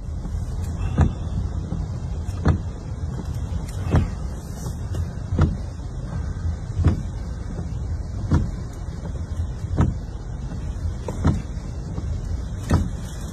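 Windshield wipers sweeping at a steady beat, one stroke about every second and a half, over the steady low rumble of a car in heavy rain.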